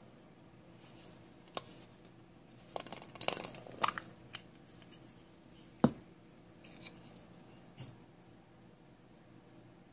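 Small hard plastic toys being handled: scattered clicks and taps, a busier run of clicking and scraping from about three to four and a half seconds in, and one sharper knock about six seconds in.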